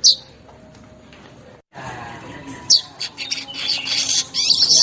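Manyar (weaver bird) song: a single sharp high note, then after a short break another sharp note and a dense, buzzy high chatter that builds from about three seconds in.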